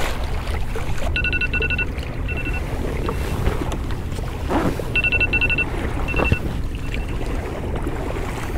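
An electronic alarm beeping: a quick run of about four beeps followed by a few fainter single beeps, heard twice. Wind and water noise run steadily underneath.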